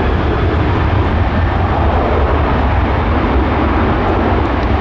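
Jet engine noise from a Boeing 747-8F's four GEnx engines, a loud steady rumble with a broad roar above it.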